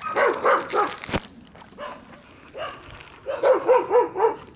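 A dog giving quick runs of short, high yips, about four a second: one run near the start and a longer run of about six near the end.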